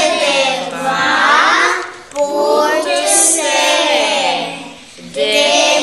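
Young voices singing a song, with two short pauses for breath: about two seconds in and near the end.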